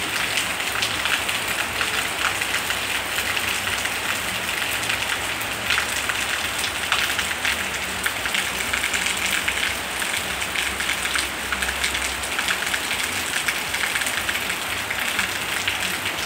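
Heavy rain falling steadily on corrugated metal roofs: a dense patter of drops.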